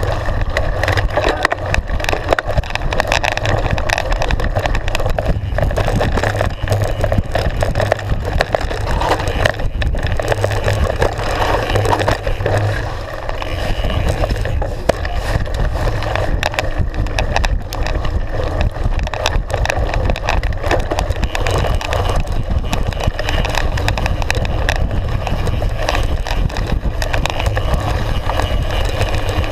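Mountain bike riding fast down a dirt and gravel trail, heard from a handlebar-mounted camera: tyres rolling and crunching with a steady low rumble, and the bike rattling and clattering over bumps.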